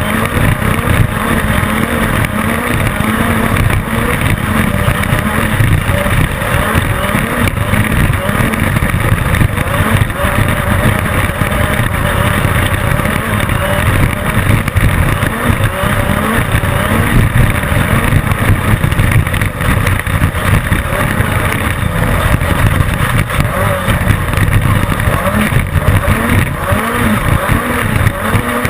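Class 10 off-road race car's engine running hard at racing speed, its pitch rising and falling again and again as it revs up and backs off.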